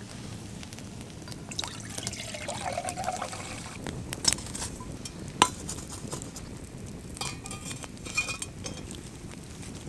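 Water poured from a bottle into a stainless-steel camping pot, then a few sharp clicks and ringing metal clinks as the pot is hung by its wire handle on a stick over a campfire.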